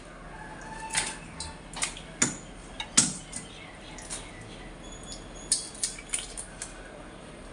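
Kitchen scissors snipping raw shrimp and being set down on the counter: scattered sharp clicks and snips at uneven intervals.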